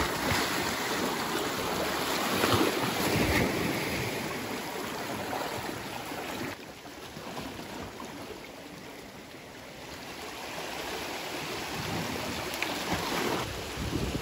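Sea water splashing and sloshing against shore rocks as a diver wades in, loudest at the start and for the first several seconds. Then the wash settles to a softer, steady sound of lapping water and wind on the microphone.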